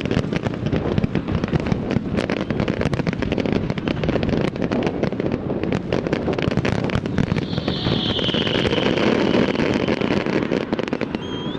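Fireworks display: a dense, continuous barrage of aerial shell bursts and crackling, with a hissing whistle rising above it about eight seconds in.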